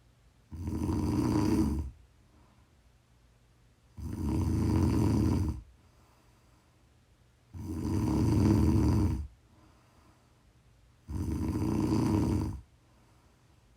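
Snoring: four long snores, each about a second and a half, coming roughly every three and a half seconds with quiet pauses between them.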